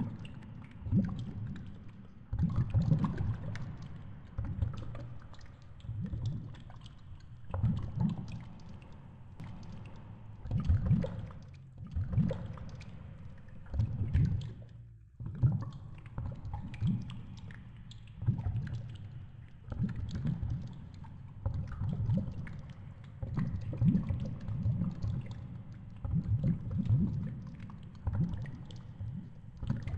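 Underwater noise heard through a GoPro's waterproof housing: low, muffled rumbling surges coming irregularly every second or two, with faint crackling above them.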